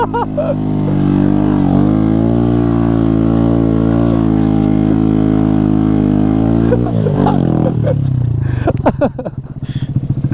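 Honda Grom's 125cc single-cylinder four-stroke engine running steadily under throttle through deep sand. About three-quarters of the way through the revs drop to a low, pulsing chug as the bike bogs down and starts getting stuck.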